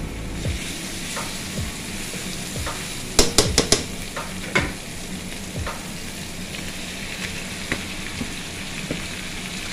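Chopped onions and garlic sizzling in hot oil in a pan, with raw chicken pieces added partway through. A quick run of sharp clacks comes a little over three seconds in, and one more about a second later.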